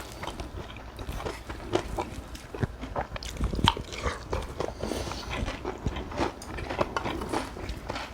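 A person eating cockle bibimbap close to the microphone: irregular wet chewing and mouth-smacking clicks.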